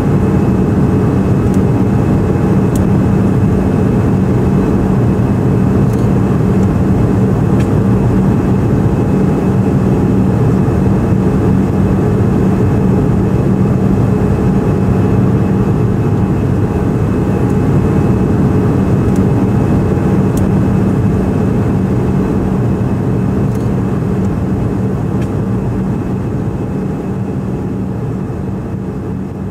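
Steady in-flight cabin noise of a Fokker 100 jetliner: its rear-mounted Rolls-Royce Tay turbofans and the rushing airflow make a deep, even drone with a steady low hum running through it. The sound gradually fades near the end.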